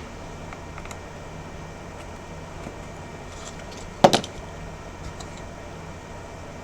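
A single sharp clack about four seconds in, with a brief rattle after it, over a low steady hum: a hard object knocking on the workbench while the phone and tools are handled.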